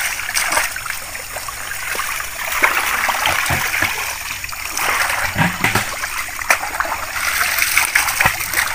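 Shallow muddy pond water splashing and sloshing as people wade through it and scoop with plastic baskets.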